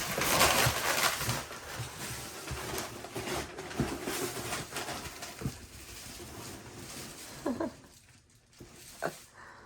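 Packaging rustling and being handled as a gift box is unpacked: a loud crinkly rustle at the start, then scattered light knocks and rustles. Two short pitched calls near the end.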